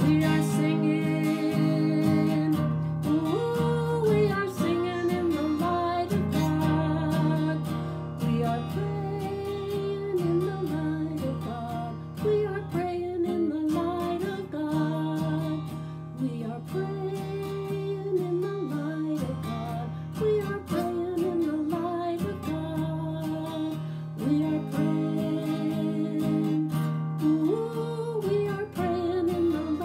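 A woman singing a simple sung melody while strumming an acoustic guitar in a steady rhythm.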